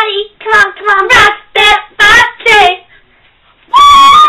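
Teenage girls singing loudly in short syllables, their voices hitting the top of the microphone's range, then a brief pause and one long, high held note near the end.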